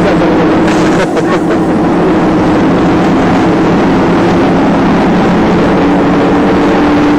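Engine and road noise heard from inside a moving vehicle: a steady, loud engine drone over rushing noise, with a few short knocks or rattles about a second in.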